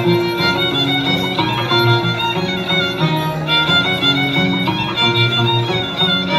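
Andean chimaycha dance music: a violin carries the melody over lower repeating accompaniment notes, playing steadily without a break.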